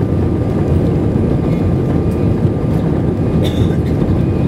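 Airbus A320 jet engines and airframe heard from inside the passenger cabin over the wing on the takeoff run: a loud, steady, deep rumble with a faint thin whine above it.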